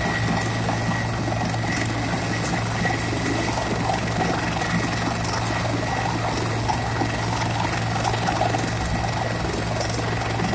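Helicopter running on the ground with its rotor turning: a steady low hum under a constant high whine, unchanging throughout.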